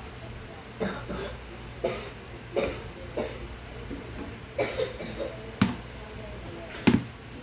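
A person coughing repeatedly: about seven short coughs, spaced roughly a second apart, over a low steady hum.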